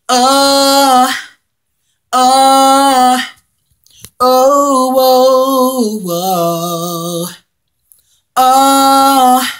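A man singing unaccompanied, holding long notes with vibrato in four phrases separated by short silences. The third and longest phrase steps down in pitch about two-thirds of the way through.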